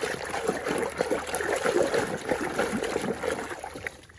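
Running water trickling and splashing over a muddy toy car as it is washed clean; the water sound dies away just before the end.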